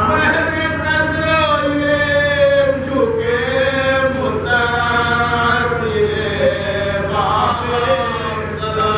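Men chanting a soz, an Urdu elegiac lament, unaccompanied: a lead voice joined by another singer in long held notes that slide from pitch to pitch.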